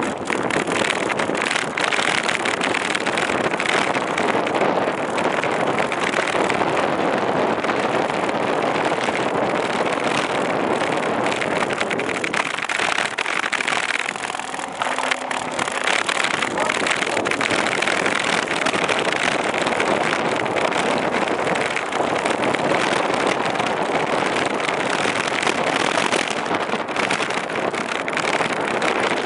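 Steady wind rush on the microphone of a camera riding along on a bicycle, mixed with tyre and road noise. It eases briefly about halfway through.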